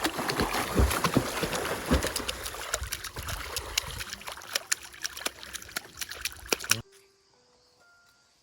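Stream water splashing and sloshing, full of sharp clicks and knocks. It cuts off suddenly about seven seconds in, leaving quiet with a few soft music notes.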